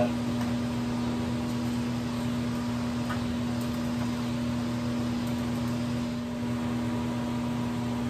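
Steady low machine hum with a constant drone, unchanging throughout.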